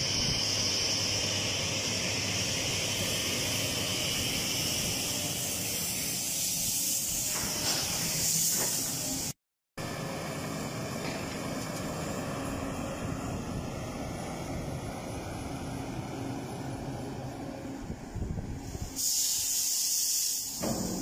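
SANY SMHC50 tracked material handler's diesel engine running steadily under a constant hiss. The sound cuts out for a moment about nine seconds in, and there is a short, louder rush of noise near the end.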